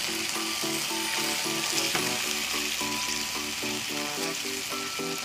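Background music, a quick even beat of short repeated notes about three a second, over the steady sizzle of onions and capsicum frying in tomato and soy sauce in a wok.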